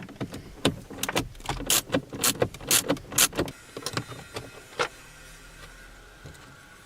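Irregular sharp metallic clicks and taps from a driver being set into and turned on the Torx screws that hold a car's instrument cluster. They stop about five seconds in, leaving a faint steady hum.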